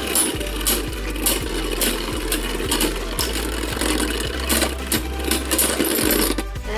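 Two Beyblade Burst spinning tops whirring and rattling against each other in a plastic stadium, with frequent sharp clicks as they collide. Both tops are wobbling as they wind down near the end. Background music with a steady beat runs underneath.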